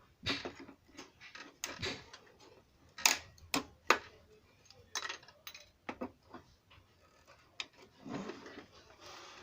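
Irregular clicks and taps of hand work on a plastic car headlight housing, with a rough scraping sound near the end.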